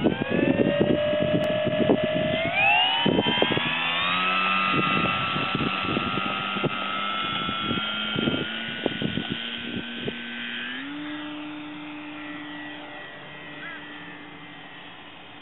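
Electric motor and propeller of a 1.4 m HobbyKing foam Spitfire RC model whining steadily. The pitch climbs about two and a half seconds in as the throttle opens for the take-off run, then the whine fades as the plane climbs away. Irregular low thumps sound over the first nine seconds.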